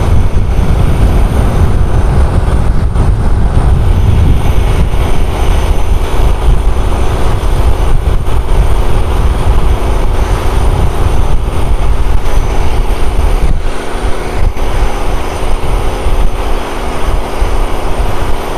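Boat diesel engine running steadily at close range: a loud low rumble with a steady hum over it. The low rumble eases a little about two-thirds of the way through.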